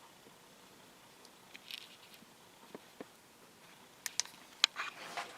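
Low-level handling of an Air King PL20P box fan: mostly quiet with a few faint ticks, then a cluster of sharp clicks and taps about four seconds in.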